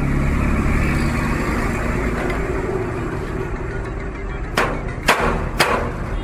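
A steady background rumble, then three sharp metallic hammer blows about half a second apart, a hammer striking a steel rod held against a padlock to break it open.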